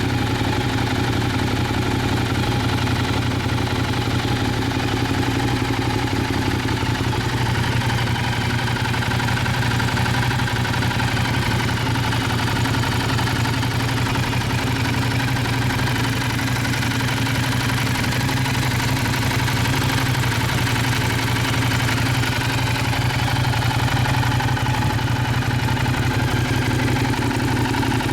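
Ducati Diavel's 1198 cc L-twin engine idling steadily through an aftermarket silencer.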